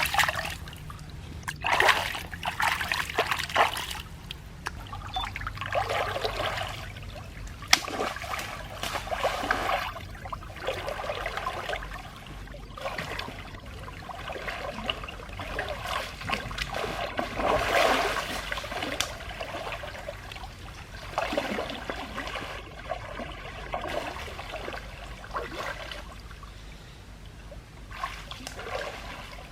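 Water trickling and splashing in irregular bursts that come and go.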